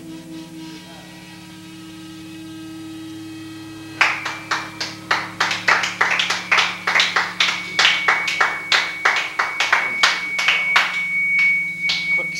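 Hand clapping from a few people, starting about four seconds in as quick, uneven claps, over a steady electric hum. A thin, high ringing tone joins the claps.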